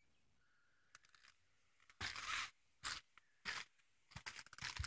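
Near silence, then from about two seconds in a few short, faint scuffing crunches, the last a quick run of small ticks: shoes stepping on gritty asphalt.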